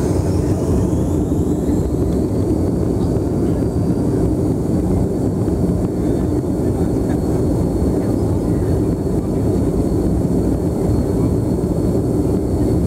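BAe 146 cabin noise from a seat beside the engines: a steady low rumble with a thin high turbofan whine that falls in pitch over the first couple of seconds, then holds steady, with the engines at low power before the take-off roll.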